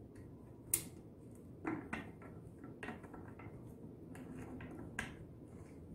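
Scattered light plastic clicks and knocks from a chainsaw tank cap being handled and screwed shut, the sharpest about three-quarters of a second in and a few more spread through the rest.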